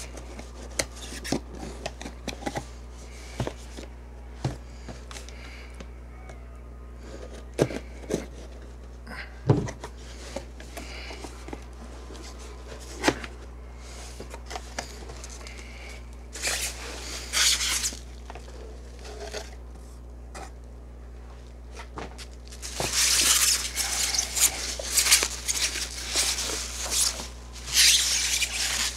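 A sealed trading-card box being unwrapped by hand: scattered taps and knocks as it is handled, then a short rustle and, in the last third, a long stretch of plastic wrap crinkling and tearing.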